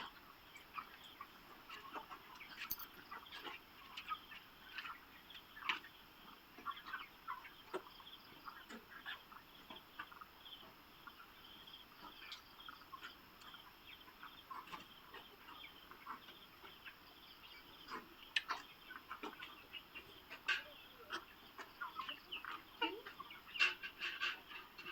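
A flock of chickens clucking and calling: many short, overlapping calls with no let-up.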